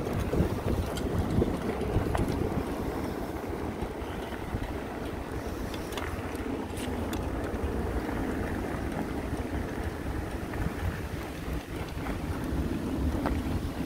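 Steady rushing rumble of an electric fatbike being ridden on a gravel path: wind on the microphone and the fat tyres rolling over gravel, with a few faint clicks.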